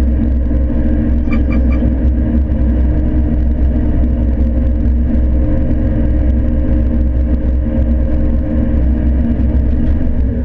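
John Deere combine running with a steady low rumble. Three quick electronic beeps sound about a second and a half in.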